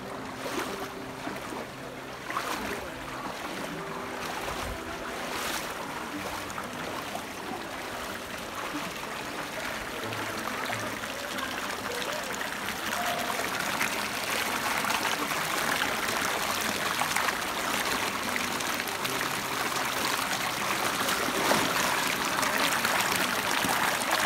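Shallow stream water running and trickling over stones, growing louder in the second half.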